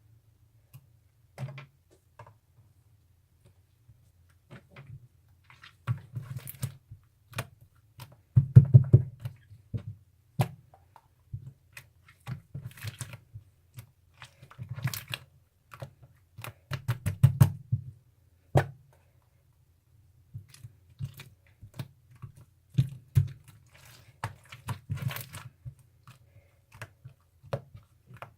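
Irregular clusters of small taps, clicks and soft thunks, as of objects being handled or tapped at close range, over a faint low hum.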